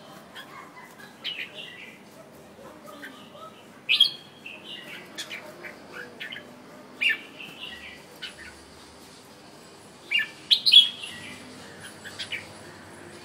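Red-whiskered bulbul singing short, bright chirping phrases every couple of seconds, loudest about four seconds in, again at about seven seconds, and near the end.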